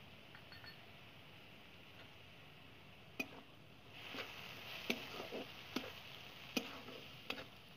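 Metal spatula scraping and knocking against a metal kadai while stirring a masala paste frying in mustard oil, over a faint sizzle. The strokes begin about three seconds in, sharp scrapes roughly one a second, as the masala is being fried down after salt and turmeric go in.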